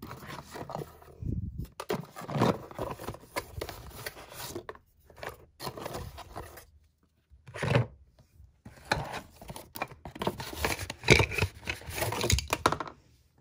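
Small cardboard box being handled and its contents taken out: irregular rustling, scraping and rubbing of cardboard, with a few louder knocks.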